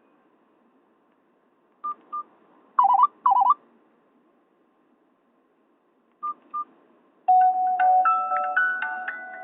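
Short electronic beeps from a Nokia 216 phone, in pairs, with a louder wavering pair around three seconds in. About seven seconds in, a Nokia N78 ringtone melody of bright electronic notes starts playing loudly from the phone's speaker.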